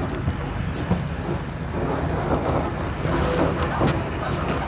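Mercedes-Benz OF 1721L bus with a Marcopolo Torino body running, a steady low rumble with light rattling and clicking from the body.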